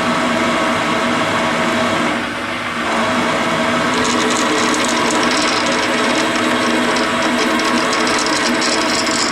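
Metal lathe running with a steady motor whine. From about four seconds in, a flickering higher scratchy hiss joins it as the tool cuts into the aluminum pulley.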